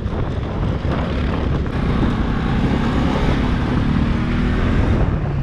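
Bajaj Pulsar NS200 single-cylinder motorcycle engine running under way, heard from the rider's seat, with heavy wind and road rumble over the microphone. A steady engine note comes through from about two seconds in.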